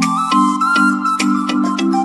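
Background music: an upbeat tune of quick, evenly spaced mallet-like notes over a held bass line, with no speech.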